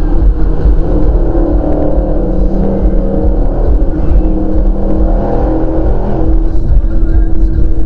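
Jaguar car's engine running at speed in a road tunnel, a steady drone over heavy low rumble, its pitch climbing slightly in the middle and then holding steady near the end.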